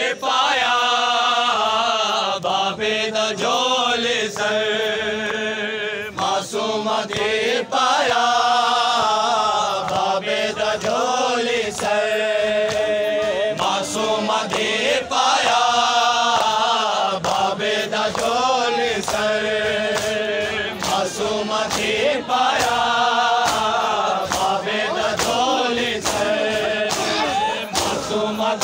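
Shia matam: a crowd of men chanting a mourning lament together, with sliding, drawn-out sung lines, over repeated sharp slaps of hands striking bare chests.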